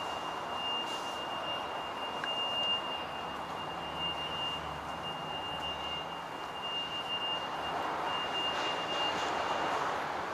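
Subway station platform ambience: a steady rushing hum with a thin, high-pitched whine over it that stops near the end.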